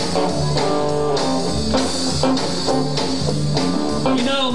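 Live blues band playing an instrumental passage: guitar to the fore over a steady bass line and drums, with a wavering, bent note near the end.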